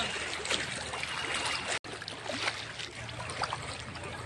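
Water sloshing and swishing around the legs of people wading knee-deep through floodwater, with small splashes throughout. The sound breaks off for an instant about two seconds in.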